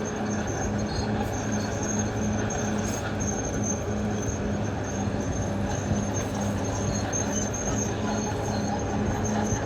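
Caterpillar D6R XL crawler bulldozer working: a steady diesel engine drone with a pulsing low note and the noise of its steel tracks, with a thin high whine over it.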